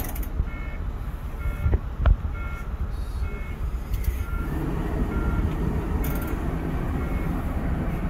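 Inside a Prevost coach with its engine idling: a steady low rumble, with a short electronic beep from the dash repeating about once a second as the air conditioning is switched on. About four seconds in, a rushing sound of the air-conditioning blowers fills in under it.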